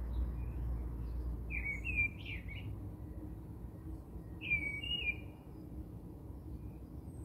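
A small bird chirping in two short, quick warbling phrases, about two seconds in and again past four seconds, over a low steady rumble.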